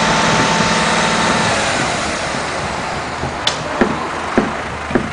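A vehicle engine running steadily, with a pitched hum that drops away about a second and a half in. Four or five short sharp knocks follow in the second half.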